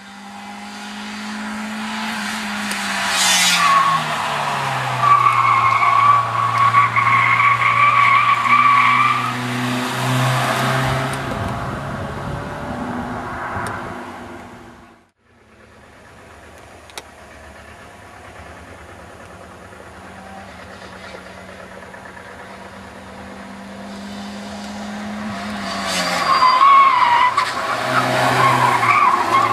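A Daihatsu hatchback taken fast through a bend twice. The engine note drops as the car slows into the corner, then the tyres squeal steadily for several seconds. The sound cuts off abruptly around the middle; on the second pass the engine builds up again and the tyres squeal briefly, wavering, near the end.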